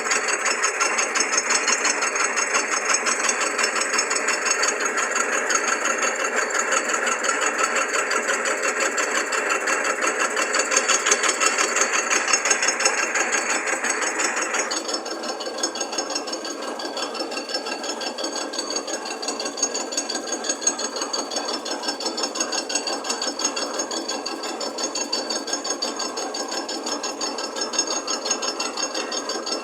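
A drill press rigged as a milling head on a lathe under power feed, cutting the deck face of a small-block Chevy cylinder head: a steady, rapid machining chatter. About halfway through, the sharper cutting noise stops and the machine runs on more quietly.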